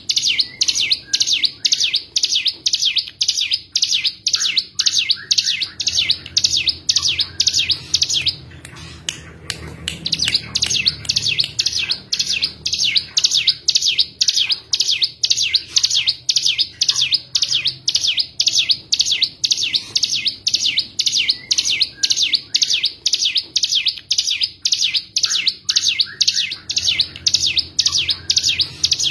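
Ciblek gunung (a prinia) song: a fast, even run of sharp, high chip notes, about three a second, broken by a short pause about eight seconds in.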